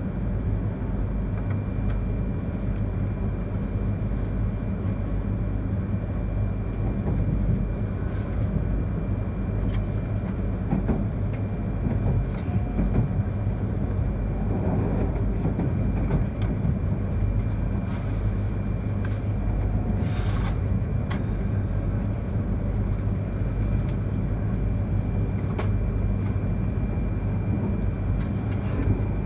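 Inside the passenger car of a Yamagata Shinkansen E3-series train running: a steady low rumble of wheels on rail, with a faint steady high whine throughout. There are two brief hissing bursts near the middle.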